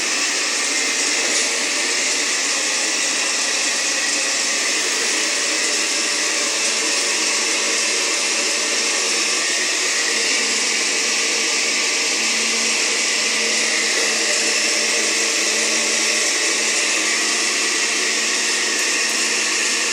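Electric kitchen blender running steadily at one speed, puréeing tomato, garlic and onion with water for a soup base.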